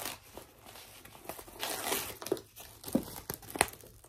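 Crinkling and rustling of packaging as a handbag is handled, with two sharp clicks near the end.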